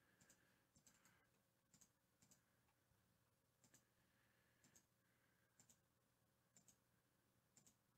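Faint computer mouse clicks, each a quick double tick of press and release, coming about once a second as the randomize button is clicked again and again.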